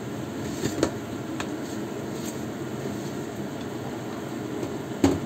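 Soup boiling in a wok on a gas burner: a steady bubbling and burner noise, with a few small pops.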